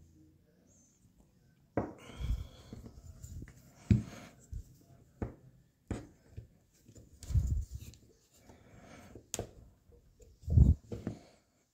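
Hands working on a motorcycle front brake master cylinder: the metal housing, lever and tools click, knock and scrape together in scattered handling noise, with a sharp metallic click near the middle and a few heavier thumps.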